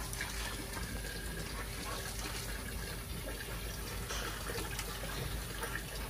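Garden hose spraying water onto a concrete kennel floor, a steady hiss of water.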